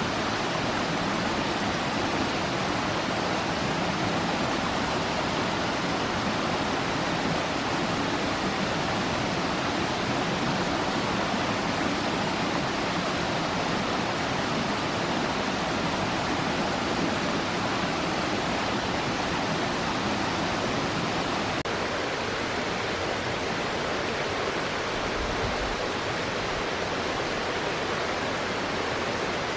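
Steady rushing water of a forest stream or small waterfall, an even hiss with no breaks, its low rumble thinning slightly about two-thirds of the way through.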